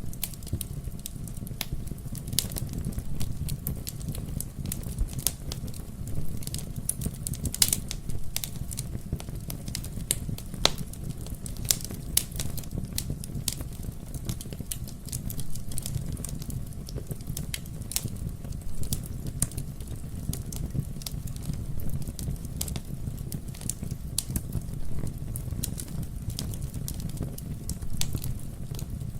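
Wood fire burning in a fireplace: a steady low rumble of the flames with frequent sharp, irregular crackles and pops from the burning logs.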